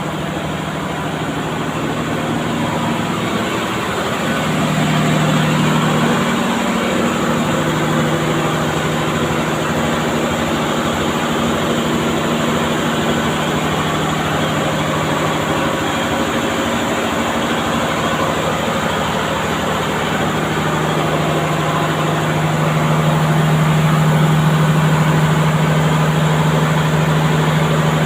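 Carrier 5H120 reciprocating refrigeration compressor running steadily on test: a constant mechanical drone with a low hum. The hum grows a little louder about five seconds in and again near the end.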